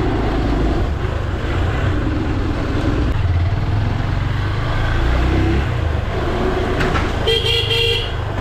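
Motorcycle engine running at low speed through narrow lanes, with a short vehicle horn toot near the end.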